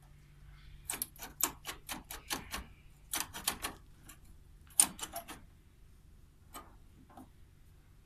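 Old, rusty mortise door lock clicking as its lever handle is worked, the latch mechanism snapping in three quick runs of metallic clicks, then two single clicks near the end.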